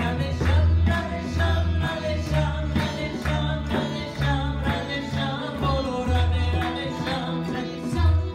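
Live kirtan music: women singing a devotional chant over strummed acoustic guitar, harmonium, tabla and upright bass, with steady bass notes and a regular drum beat.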